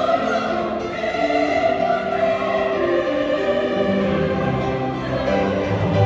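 Choir singing held chords, with a low bass part coming in about two-thirds of the way through.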